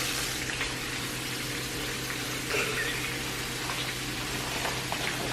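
Chicken deep-frying in a Fry Daddy deep fryer: a steady hiss of bubbling hot oil.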